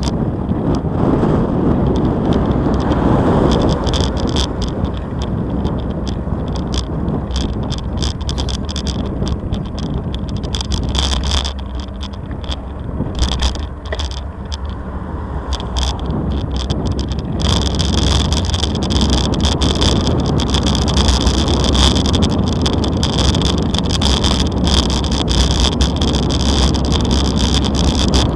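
Bicycle rolling over brick paving: a steady rumble of tyres on the bricks with constant small rattles and knocks from the bike, busier in the second half, over a low wind rumble on the microphone.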